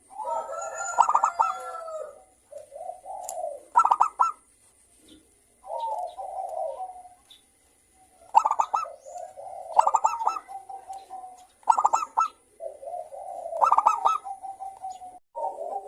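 Zebra dove (perkutut) cooing: phrases of rapid stuttering notes that run into rolling, purring coos, repeated every second or two with short pauses between them.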